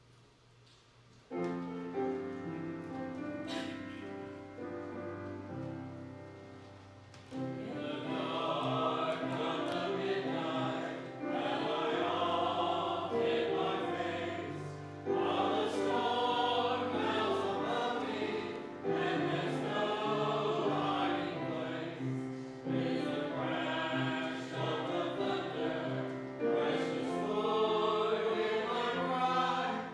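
Church music: an instrumental introduction of held chords starts about a second in, then a group of voices joins in singing a hymn, phrase by phrase, about seven seconds in.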